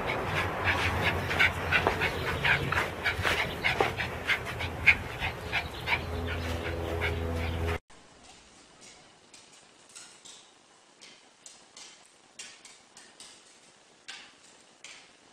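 A dog gives a quick run of short yips, several a second. About eight seconds in the sound cuts off, and what follows is faint, irregular ticking of a dog's claws on a tile floor.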